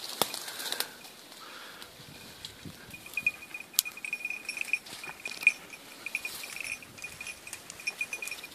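Rustling steps through tall grass and reeds, with scattered clicks. About three seconds in, a steady, pulsing high-pitched tone starts and keeps on.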